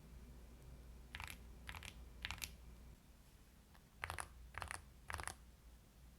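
Akko Mod007 HE keyboard with Cream Yellow magnetic linear switches, PBT double-shot keycaps and a taped PC plate, typed in six short clusters of clacking keystrokes with pauses between them, with a longer gap in the middle.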